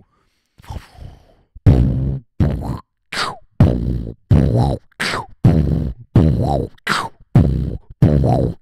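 Beatboxer's vocal bass: a regular run of short, deep, growled bass hits made with the vocal cords, about one every half second after a brief pause at the start. Each hit has a pitch sweeping down on top.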